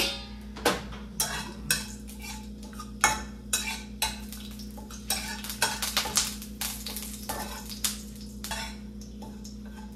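A spatula stirring whole spices in oil in a metal frying pan, with irregular scrapes and clinks against the pan.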